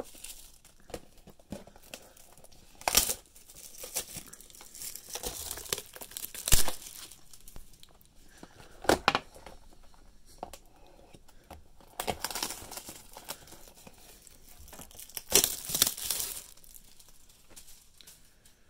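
Plastic shrink-wrap on a trading-card hobby box being cut with a serrated knife and pulled off, crinkling and tearing in irregular bursts. A few sharp knocks of the knife or box on the table, the loudest about six and a half seconds in.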